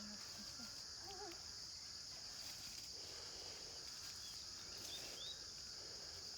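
A steady, high-pitched insect chorus drones without a break, with a few short rising chirps, likely from a bird, about five seconds in.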